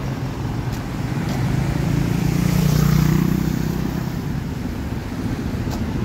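Road traffic passing along a busy street, with a vehicle's engine hum growing louder about halfway through as it passes close, then fading.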